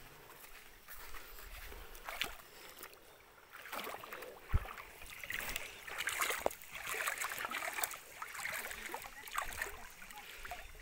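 Shallow stream trickling and lapping, with scattered faint knocks and rustles; one sharper knock a little before halfway.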